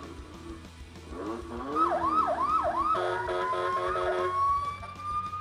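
A ride-on toy police SUV's built-in electronic sound effects as it is powered up: a few swooping tones, then three quick siren sweeps about two seconds in, followed by a short run of electronic notes over a slowly rising siren tone. The sounds show that the toy's electronics are starting and working.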